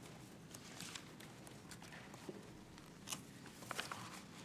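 Faint scattered clicks and rustles of papers being handled, with soft footsteps, a few slightly louder ticks about three seconds in.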